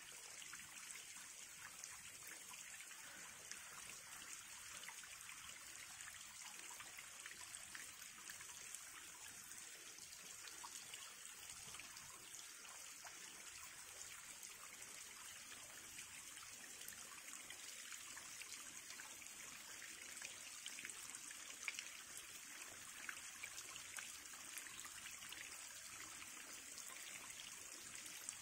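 A small cascade of water running down over stones: a faint, steady trickling and splashing with a fine patter of drops.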